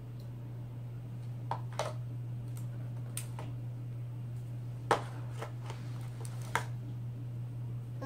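Scattered light plastic clicks and taps as a toddler handles remote controls, irregular, with one sharper knock about five seconds in, over a steady low hum.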